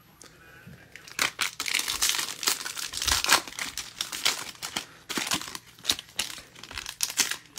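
Foil wrapper of a Panini Mosaic baseball hobby pack crinkling as it is handled and torn open. The dense crackle starts about a second in.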